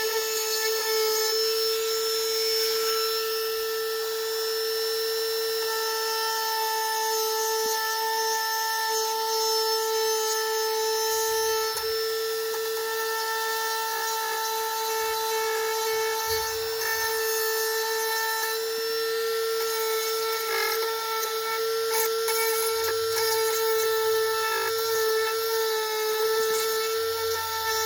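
Dremel rotary tool with a grinding stone running at a steady high whine while it grinds into fiberglass, its pitch holding even as the load shifts.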